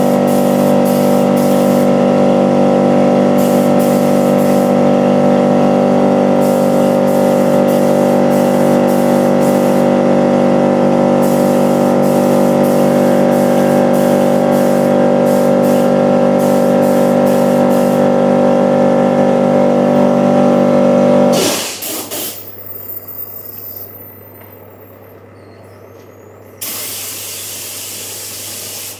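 Air compressor motor running with a steady hum, then cutting out suddenly about three-quarters of the way through, as if it has reached pressure. Near the end the spray gun starts hissing as it sprays paint.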